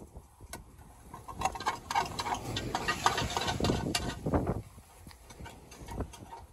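A cooking pot being scraped out: a run of quick, irregular scraping and knocking strokes, thickest from about one and a half to four and a half seconds in.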